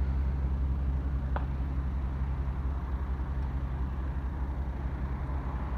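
A motor vehicle's engine idling: a steady low drone that fades slightly, with one faint click about a second and a half in.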